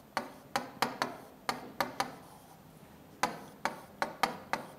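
Felt-tip marker tapping on a whiteboard as letters are written: about a dozen sharp, irregular taps, with a pause of about a second in the middle.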